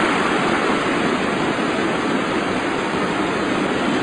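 Stadium crowd cheering a goal, a steady, dense wall of noise with no single voice standing out.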